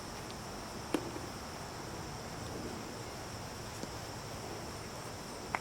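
Crickets trilling steadily in the background, one high unbroken tone, with a single sharp click about a second in.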